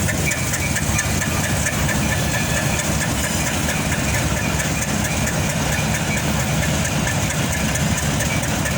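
Diesel locomotive engine running steadily at a loud, even level.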